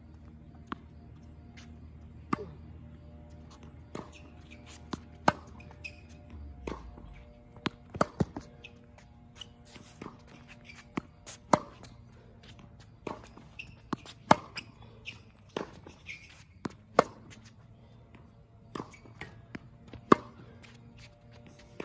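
Tennis ball being struck by a racquet and bouncing on a hard court during a groundstroke rally: sharp pops at irregular intervals, about one or two a second, over a steady low hum.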